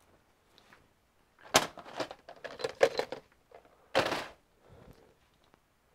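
Clicks and rattles of a hand tool and metal parts being handled at a desktop PC case's expansion-slot area, then a louder clatter about four seconds in.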